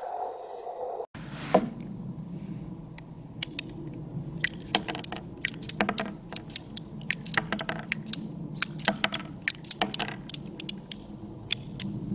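Antique Colt Single Action Army revolver being handled after firing: a quick, irregular run of sharp metal clicks and clinks as the cylinder is turned and brass cases are worked out of it. A steady high insect drone sits behind it.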